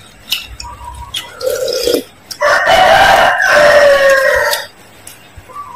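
A rooster crowing: a short lower note, then one long loud crow of about two seconds in the middle, dropping slightly in pitch at its end.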